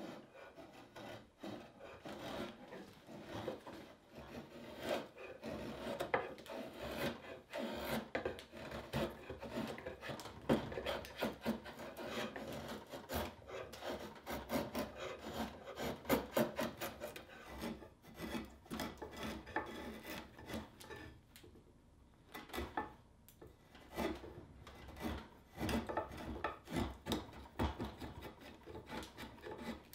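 Spokeshave cutting shavings from a wooden pickaxe handle in quick, repeated scraping strokes, with a brief lull about two-thirds of the way through.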